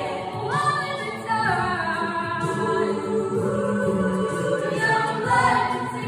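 Mixed-voice a cappella vocal ensemble singing in harmony, sustained chords with voices gliding up to a higher note about half a second in.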